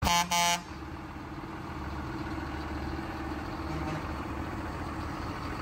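Two short, loud horn blasts, then the diesel engines of a column of farm tractors idling steadily.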